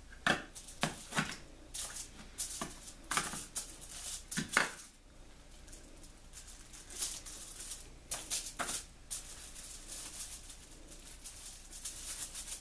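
Short scraping and crinkling sounds from a pizza cutter wheel trimming dough on a foil-lined metal baking sheet, several in the first half and a few more later.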